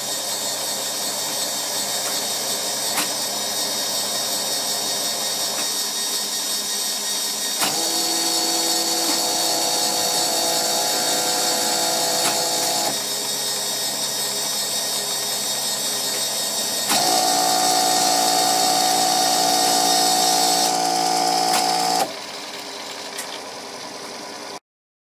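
Small electric drive motors of a model steel works whirring steadily, with two louder spells of a steady geared-motor whine as the model's steel transfer car is driven along under the converter. The sound cuts off suddenly near the end.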